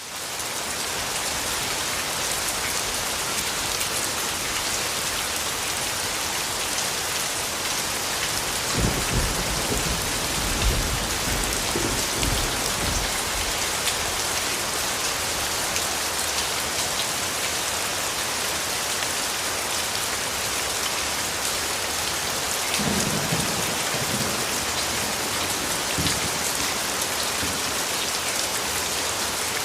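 Steady heavy rain, an even hiss that fades in over the first second. Low rolls of thunder rumble under it twice: a longer one from about a third of the way in, and a shorter one near three quarters of the way through.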